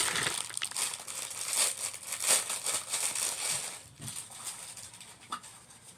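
Toy packaging being handled and opened, crinkling and rustling in quick irregular crackles for about the first three and a half seconds, then fainter scattered crackles.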